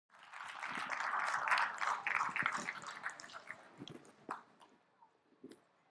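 Audience applause dying away, loudest about a second and a half in and thinning to a few scattered claps.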